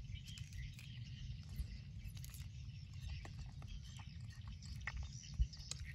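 Soft, wet mouth clicks and chewing sounds of feeding, scattered throughout with one sharper click near the end, over a steady low rumble and a faint high insect hum.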